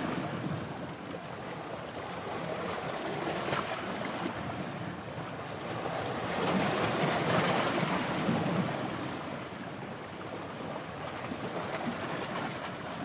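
Sea waves washing onto the beach, with wind buffeting the microphone; the wash swells louder in the middle.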